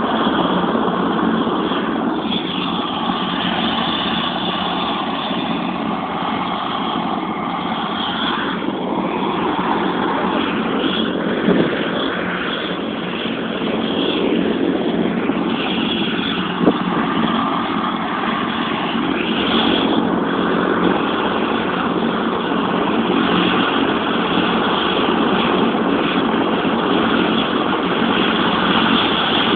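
Helicopter running on the ground, a steady drone that does not let up.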